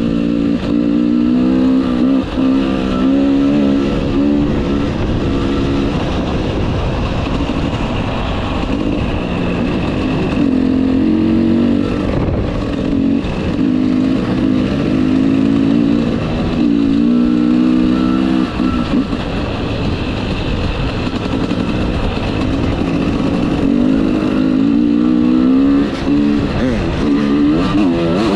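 Enduro dirt bike engine under way on a dirt track, its pitch rising and falling with throttle and gear changes, heard from the rider's own bike.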